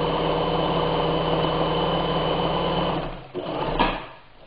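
Bernina 817 sewing machine running fast at a steady speed, stitching a stretch stitch, then stopping about three seconds in. A short rustle and a sharp knock follow as the fabric is moved.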